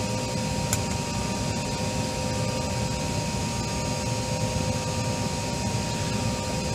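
Steady cockpit ventilation and equipment-fan noise, engines shut down: a low rumble with two faint steady tones running through it. A single short click sounds just under a second in.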